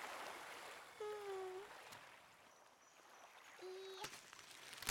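A toddler's short wordless coos, two of them about two and a half seconds apart, each a held tone that dips slightly, over faint lapping water. A brief rustle of leaves comes near the end.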